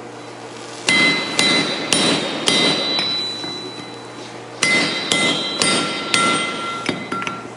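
Hand hammer striking a slitting chisel as it is driven into a steel bar to slit the eye of a hammer head, each blow ringing metallically. A run of about five blows, roughly two a second, is followed by a short pause, then another run of blows.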